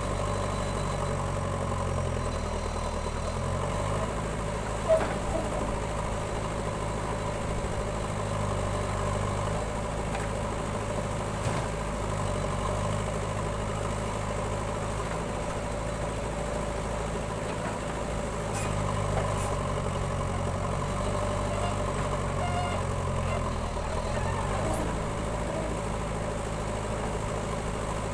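Diesel engine of a JCB backhoe loader running while it digs with its backhoe arm, the engine note shifting as the hydraulics take load, with a tractor's diesel idling alongside. A single sharp clank about five seconds in.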